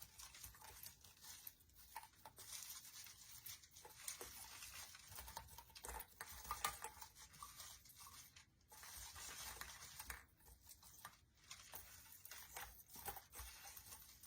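Faint rustling and crinkling of artificial pine branches and picks being bent and adjusted by hand, with small scattered clicks.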